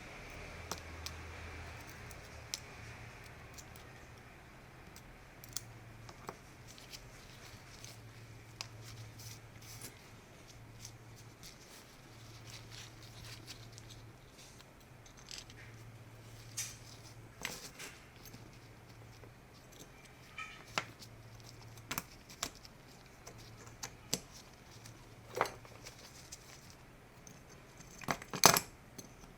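Scattered small clicks and handling noises from hand work on small parts, growing louder and more frequent near the end, over a faint low hum.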